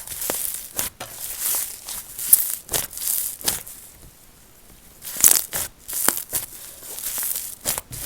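Slime being squeezed and pressed by hand, giving irregular crackly, crunchy pops in quick clusters with a short lull about halfway through.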